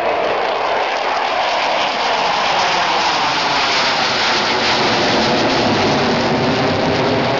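Four Su-27 jet fighters flying over in close formation: the loud, steady roar of their AL-31F turbofan engines, with a deeper rumble building after a couple of seconds.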